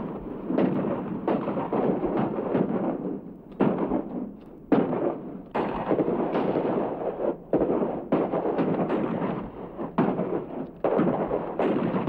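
Battle sound effects of a continuous barrage of gunfire and shell explosions. Sharp blasts come about every half second to a second, each trailing off into a rumble and overlapping the next.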